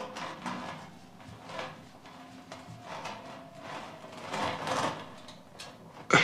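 Faint scrapes and creaks as two people strain toward each other out of metal dustbins, trying to kiss.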